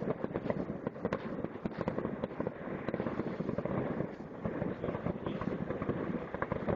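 Fireworks popping and crackling in a dense, rapid stream of sharp reports, many a second, with no let-up.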